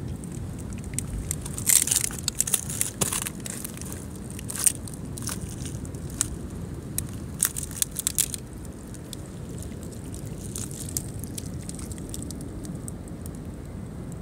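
Mussel shells crunching and crackling on a rocky mussel bed: a run of sharp cracks and clicks about two seconds in, thinning out after about eight seconds, over a steady low rumble.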